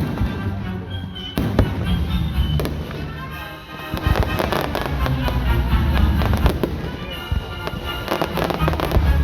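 Fireworks bursting and crackling in quick, dense volleys, thickest from about four seconds in, over show music playing along with them.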